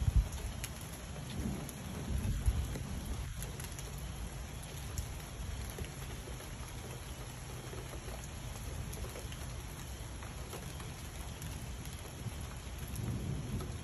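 Steady rain falling, with low rolling thunder that rumbles at the start, swells again about two seconds in and dies away, then builds again near the end.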